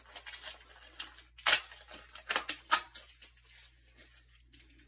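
A shipping label being peeled and torn off a package by hand: a run of short, scratchy rips, the sharpest two about a second and a half and nearly three seconds in.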